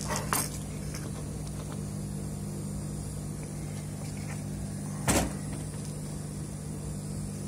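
Steady low hum of a small electric motor on the workbench, with one light tap about five seconds in.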